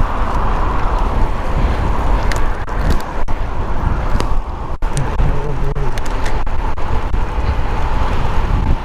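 Wind rushing over a helmet-mounted camera's microphone while cycling, steady and heavy in the low end, with road traffic underneath.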